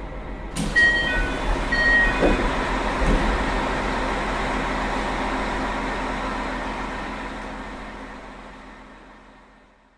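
Running sound heard aboard a JR Hokkaido KiHa 201 series diesel railcar. A sudden rush of noise about half a second in, a few short high beeps over the next couple of seconds, then a steady hum that fades out towards the end.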